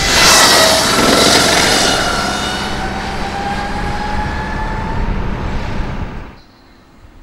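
Agni X01 electric racing motorcycle passing at speed: a high electric-motor whine over a rush of wind and tyre noise, the whine sliding slowly down in pitch as the bike draws away. The sound drops off abruptly about six seconds in.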